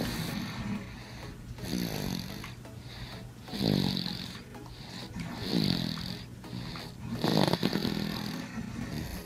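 Rhythmic snoring: about four snores roughly two seconds apart, each falling in pitch.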